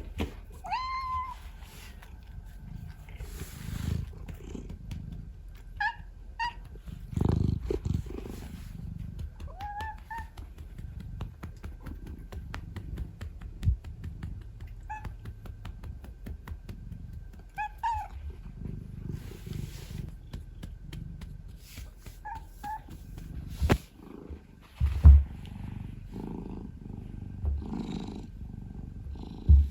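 Domestic cat purring close to the microphone, with several short rising meows scattered through. A couple of loud low thumps come near the end.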